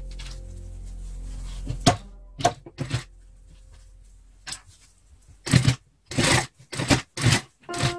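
Irregular sharp clicks and knocks from handling work at an industrial sewing machine as a fabric hat is set under the presser foot. The knocks come closer together and louder over the last three seconds, after the tail of fading background music early on.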